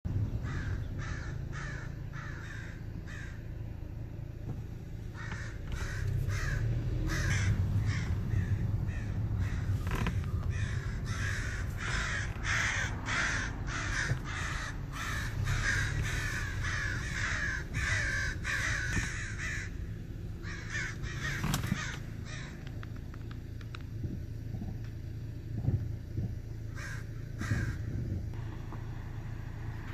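Crows cawing over and over in rapid harsh series, thickest in the middle and dying away after about twenty seconds, with a few more calls near the end. A low steady hum runs underneath.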